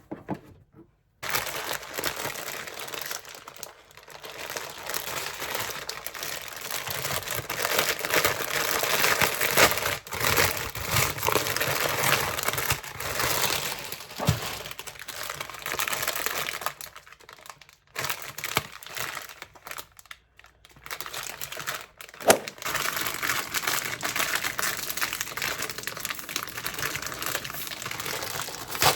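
Crinkly packaging being handled and crumpled, a dense crackling that starts about a second in and runs on with a couple of brief pauses and one sharp click in the second half.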